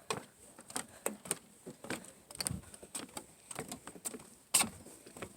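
A series of irregular, sharp clicks and knocks, the loudest about four and a half seconds in.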